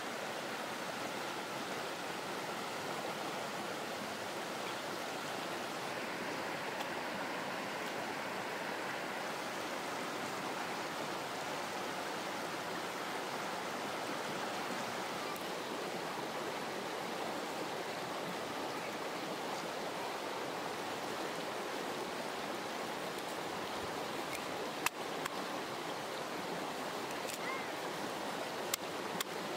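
Steady rushing of running water, like a stream, throughout; near the end, a few sharp clicks of a knife tapping the wooden chopping board.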